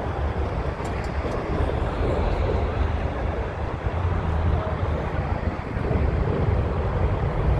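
Steady highway traffic noise: a continuous low rumble with a wash of tyre and engine noise over it.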